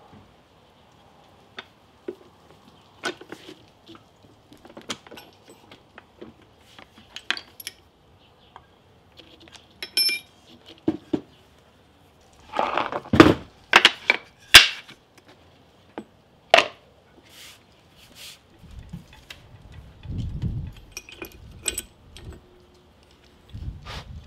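Steel rule cutting dies clicking and clinking as they are handled and laid out on a leather hide on the bed of a press, with a cluster of louder clinks about halfway through. Near the end come lower scraping knocks as a wooden cutting board is set in place over them.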